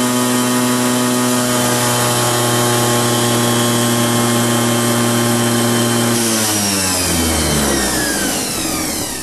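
Brushed DC motor (a modified Imperial motor) running steadily at about 7,100 to 7,400 rpm while drawing about 32 A from its battery bank, giving a steady high whine. About six seconds in the power is cut and the motor winds down, its whine falling steadily in pitch.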